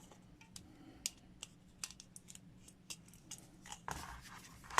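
Hands working a vintage plastic action figure and its rubber band: faint scattered clicks and rubs, with a short cluster of louder clicks near the end.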